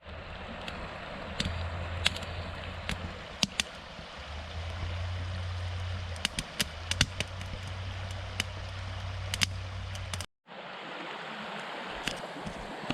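Campfire crackling, with frequent sharp snaps and pops, over the steady rush of a river. About ten seconds in the sound cuts out briefly and the river comes back alone, with only the odd click.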